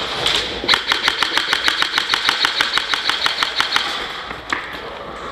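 Airsoft gun firing on full auto: a rapid, even string of sharp shots, about nine a second, lasting about three seconds and starting under a second in.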